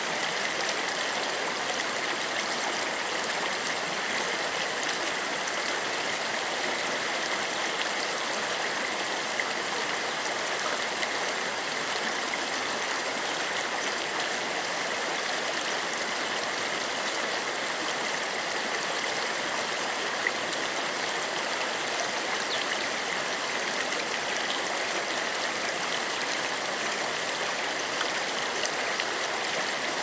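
Shallow, clear stream running steadily over a pebble bed, a continuous, even rush of rippling water.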